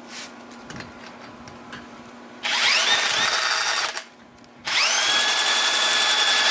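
Cordless drill spinning the 1986 Honda Z50R's single-cylinder engine over for a compression test, in two runs: a short one of about a second and a half, then a longer one starting near the middle. Each time the whine rises as the drill spins up and then holds steady. The gauge shows almost no compression.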